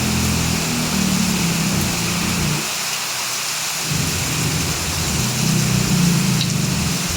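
Heavy rain falling steadily, with low rolling rumbles of thunder: one long roll that fades out about two and a half seconds in, and another that builds from about four seconds in.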